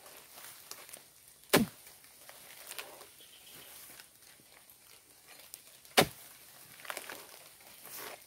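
An oil palm harvesting chisel on a long pole (dodos) jabbed up into the frond bases of an oil palm: two sharp thuds about four seconds apart, with fainter knocks between.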